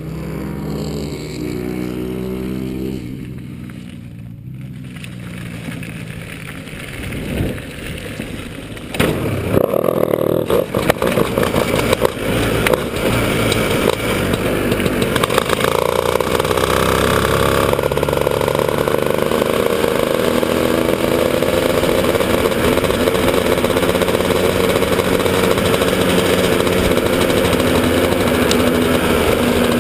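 Honda CR125 two-stroke engine of a shifter kart. It runs unevenly at lower revs for the first several seconds, then from about nine seconds in pulls hard at high revs. Its pitch climbs and drops again and again as it goes up through the gears.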